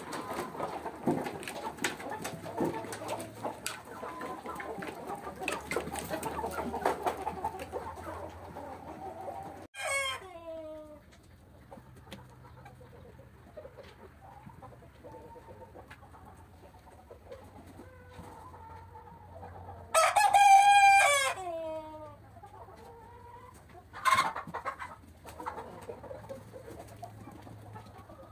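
A flock of chickens clucking and calling all at once for the first ten seconds or so, then quieter. Around two-thirds of the way through a rooster crows loudly, and a short bird call follows a few seconds later.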